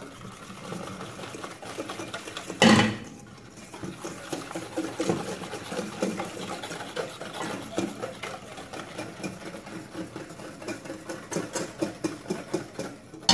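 Wire whisk beating egg yolks in a stainless steel bowl, a rapid rhythmic ticking and scraping against the metal, as hot milk is poured in to temper the yolks for crème anglaise. A single loud clunk about two and a half seconds in.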